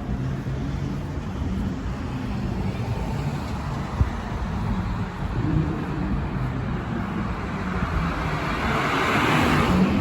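Road traffic: a steady low engine rumble, with the hiss of a passing vehicle building to a peak near the end.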